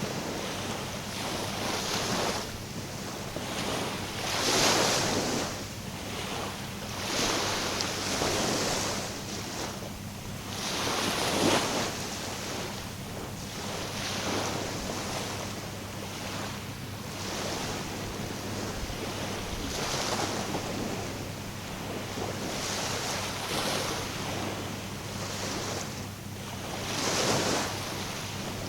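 Small waves washing in, a rush of water swelling and fading every couple of seconds, with wind buffeting the microphone.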